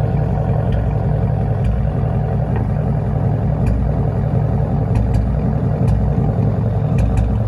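Ford 5.0 V8 on E85 running steadily, with irregular sharp pops from a misfire, which the owner puts down to worn coil packs and spark plugs.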